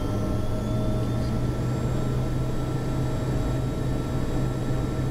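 Steady cockpit noise of a Learjet 45 on final approach with gear and flaps down: a rush of airflow over a steady low hum from its turbofan engines, with a few faint steady whining tones above.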